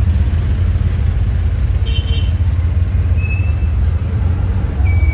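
Tuk-tuk's motor running steadily while riding along, a dense low rumble, with a few brief high-pitched tones around two, three and five seconds in.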